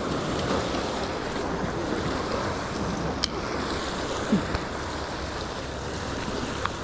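Steady rush of wind and waves washing on the shore, with wind buffeting the microphone and a few faint clicks.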